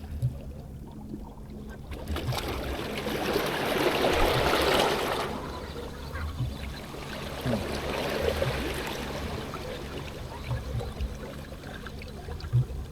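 Sea water washing against the shore, swelling into a louder surge about two seconds in that falls back after about three seconds, with a few short low thumps.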